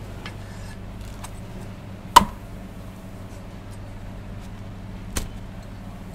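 Two sharp knocks about three seconds apart, the first much louder, over a steady low hum, with a few faint clicks between.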